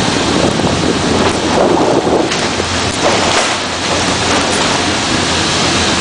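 Steady rushing noise with a low hum underneath: a vehicle on the move, its engine and road noise mixed with wind buffeting the microphone.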